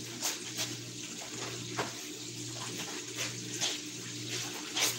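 Water splashing and sloshing as laundry is washed by hand in a basin, with several short splashes over a steady low hum.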